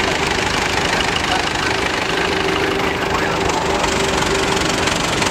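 Vintage David Brown tractor engines running steadily at low speed as the tractors drive slowly past.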